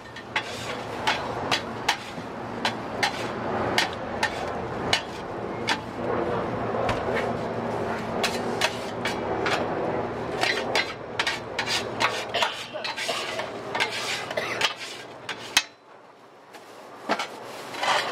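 Metal bench scrapers clanking and scraping repeatedly on a flat steel griddle as stir-fried rice noodles are turned and lifted, over a steady sizzle of sauce on the hot plate. The sound briefly drops away about fifteen seconds in, then a few more clanks follow.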